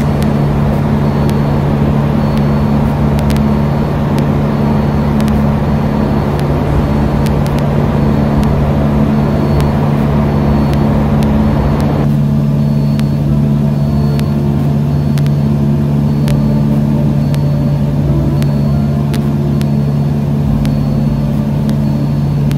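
Cessna 152's four-cylinder Lycoming O-235 engine and propeller droning steadily in flight, heard from inside the cockpit. About halfway through, the sound suddenly turns duller as its hiss drops away, while the engine's drone holds unchanged.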